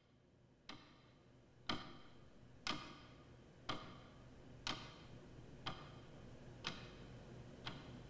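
Clock ticking steadily, one sharp tick a second. The ticking fades in at the start.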